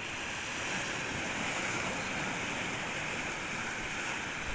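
Sea waves breaking on a sandy beach: a steady wash of surf.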